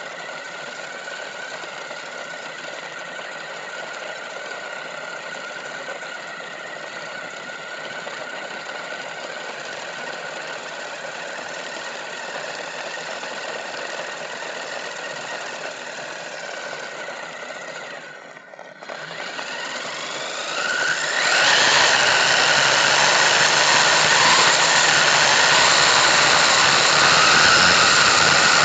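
WLToys 124007 1/12-scale RC monster truck's brushless motor and geared drivetrain whining steadily as it drives over gravel. Near the end, after a brief dip, the whine rises in pitch and the sound becomes much louder as the truck accelerates hard.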